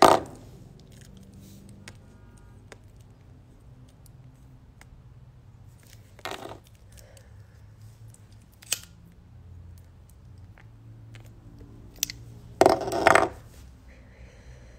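Handling noise on a phone's microphone: a few scattered knocks and rustles, the loudest a half-second rustle about 13 seconds in, over a faint low hum.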